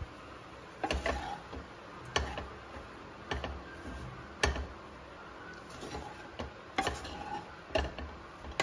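A flat spatula stirring and tossing poha (flattened rice) in a kadhai, knocking and clicking against the pan about once a second.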